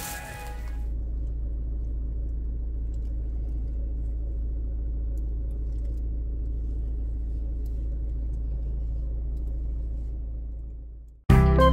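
Steady low rumble of a car on the move, heard from inside the car, with no hiss of rain. Background music fades out in the first second and comes back in loudly near the end.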